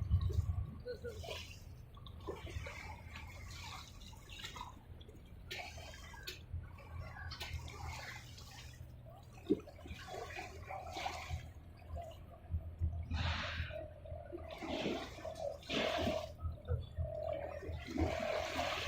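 Sea water sloshing and splashing in irregular surges over a steady low rumble.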